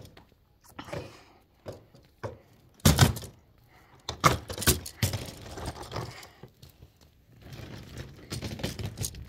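Handling and movement noise: scattered knocks and thumps with rustling, the loudest knock about three seconds in, and a steadier low rustle setting in near the end.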